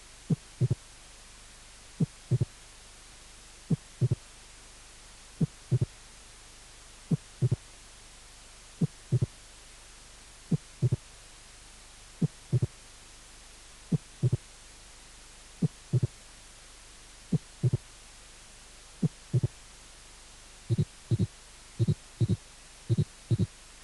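Recorded heart sounds at a slow, even rate, over a steady background hiss. The beats come in close pairs about every 1.7 s, and near the end they switch to a faster rhythm of about one pair a second.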